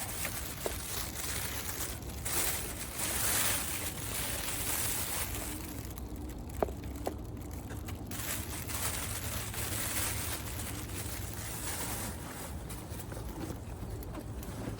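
Rustling and handling noise from a clip-less microphone being moved about against clothing and bags, with a couple of sharp clicks.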